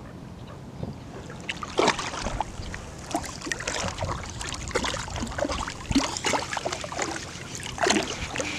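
Water splashing and sloshing in shallow marsh water, with irregular knocks and rustles starting about two seconds in.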